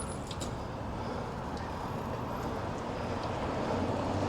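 Steady noise of city street traffic, heard from a bicycle, growing a little louder toward the end, with a faint click or two about half a second in.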